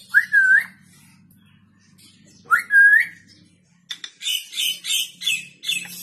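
African grey parrot whistling: two clear whistles a couple of seconds apart, each gliding up, dipping and rising again. Near the end comes a quick run of short, higher-pitched notes, about three a second.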